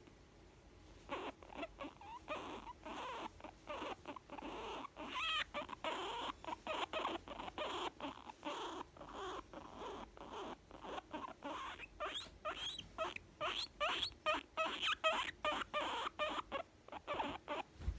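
Young guinea pig making a long run of short squeaky calls, several a second, some sliding quickly up in pitch. These are the sounds of a contented guinea pig. They start about a second in.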